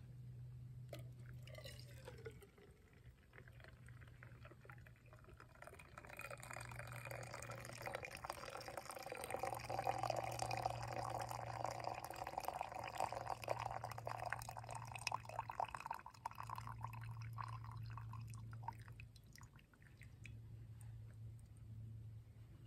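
Liquid pouring and trickling into a container, building up, loudest through the middle and then tapering off.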